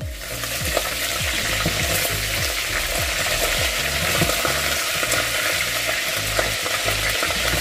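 Boiled chicken frying in hot oil in a pot: a steady, loud sizzle with fine crackling that starts suddenly.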